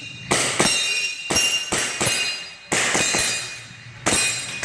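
Airsoft pistol being fired in quick, uneven succession, about seven sharp cracks, with BBs striking steel plate targets that ring out after each hit.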